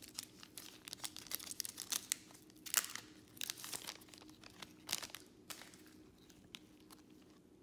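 Crinkling of a foil trading-card pack wrapper and rustling of cards being pulled out and handled, in sharp irregular crackles that die down about six seconds in.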